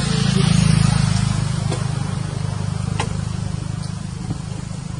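A motor vehicle engine running with a low, steady drone that swells about a second in and then slowly eases off. A few faint ticks sound over it.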